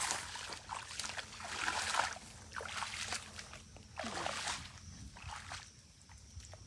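Footsteps wading through shallow marsh water, splashing and sloshing in irregular bursts.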